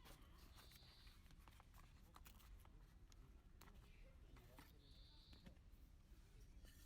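Near silence: faint background ambience with a few soft, scattered clicks.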